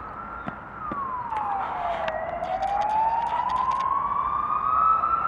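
Emergency vehicle siren wailing: one slow cycle that drops in pitch about a second in, then climbs gradually back up.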